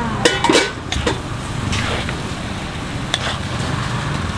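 Noodles sizzling in a large wok as a spatula stirs and tosses them, with a few sharp scrapes of the spatula against the wok. A steady low rumble runs underneath.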